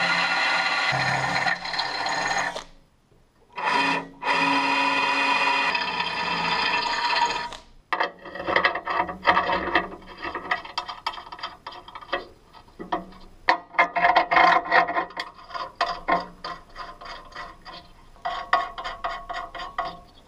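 Cordless drill boring a hole through a steel-tube table leg, its motor whining steadily for about two and a half seconds, then again after a short pause until about eight seconds in. After that comes a run of sharp metal clicks and scrapes as a steel rod foot is fitted into the tube.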